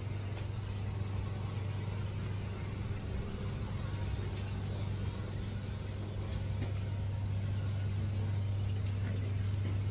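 Steady low machine hum, with a few faint clicks now and then.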